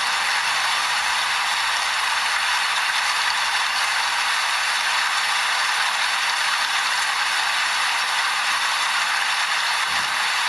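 Steady rain falling, an even hiss that holds at one level with no separate drops or thunder standing out.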